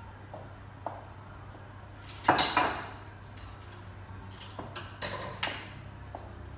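Kitchen utensils and items clattering on a countertop: one loud clatter with a brief ringing tail about two seconds in, then a few sharper knocks around five seconds, over a low steady hum.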